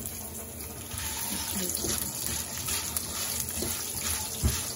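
Semolina vermicelli sizzling as it fries in oil in a kadhai, a steady sizzle that grows a little louder about a second in. A spatula stirs through it near the end, with a short low thump just before the end.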